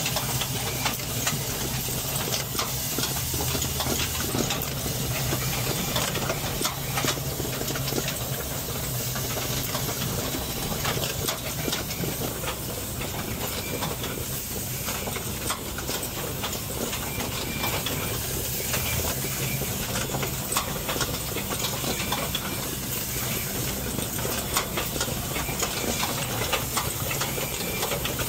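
Automated terminal-capacitor assembly machine running: a steady hiss of compressed air with frequent irregular clicks and clacks from its pneumatic cylinders and moving parts, over a low hum.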